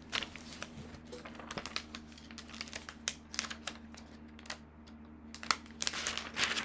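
A plastic laminating pouch and paper being handled: a run of light crinkles and clicks, with a longer, denser rustle near the end.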